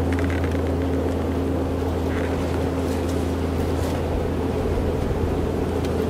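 Tractor engine running steadily, a constant low drone.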